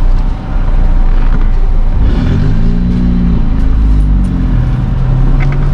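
Car engine and low rumble heard from inside the car. About two seconds in, the engine note rises as the car speeds up, then holds steady.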